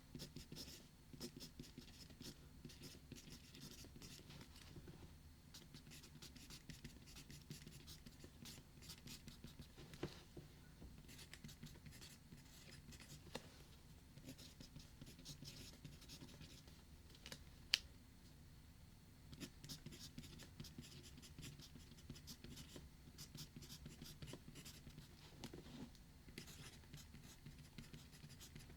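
Faint scratching of writing on paper in steady strokes, with a few sharp clicks, the loudest about two-thirds of the way through.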